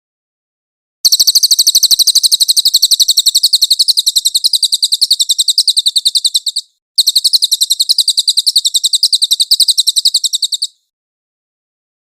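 Cililin bird singing a fast, high-pitched trill of rapid chirps, about ten notes a second, in two long runs: one of nearly six seconds, then after a brief break one of about four seconds.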